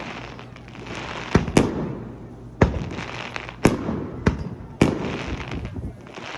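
Aerial fireworks bursting: a string of six sharp booms, two close together about a second and a half in and then roughly one a second, with a crackling haze between them.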